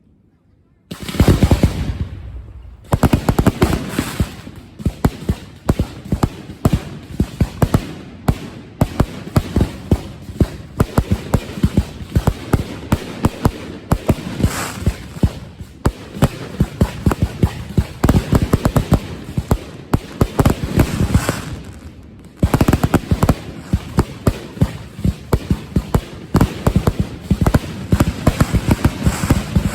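Fireworks finale barrage: a dense, rapid run of bangs and cracks from bursting shells, starting abruptly about a second in with a loud burst. The barrage eases briefly about three-quarters through, then picks back up.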